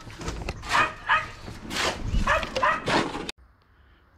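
A dog barking several times in quick succession. The sound cuts off suddenly a little after three seconds, leaving only faint outdoor background.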